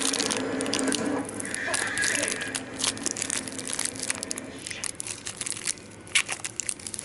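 Plastic packaging crinkling and crackling as a trading pin is unwrapped, with irregular crackles and clicks.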